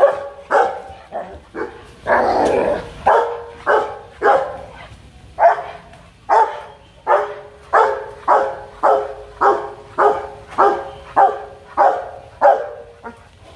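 Rottweiler barking aggressively: a long, even run of about twenty loud barks, one roughly every half second to second, with one longer, rougher bark about two seconds in. This is demanding, threatening barking from an agitated dog.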